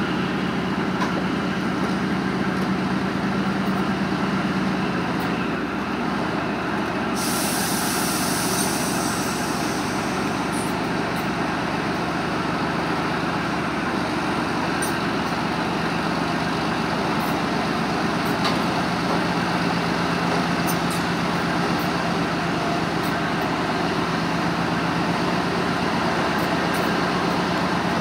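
Leopard 1 armoured recovery vehicle's diesel engine running steadily while powering its crane, its note dropping slightly about six seconds in. A hiss starts suddenly about seven seconds in and lasts a couple of seconds.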